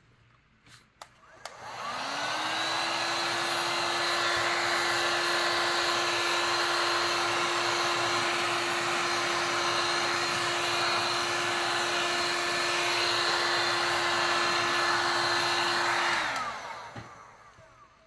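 Handheld heat gun switched on about two seconds in. Its fan spins up and runs steadily, blowing hot air over the tumbler's wet epoxy to make the alcohol inks swirl, then winds down near the end after it is switched off. A couple of faint clicks come just before it starts.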